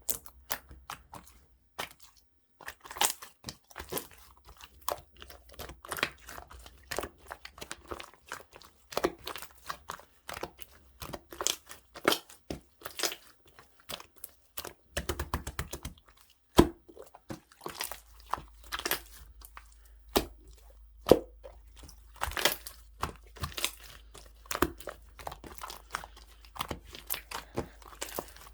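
Jelly-textured clear slime being squished and pressed by hand, giving a dense, irregular run of sticky clicks and small pops.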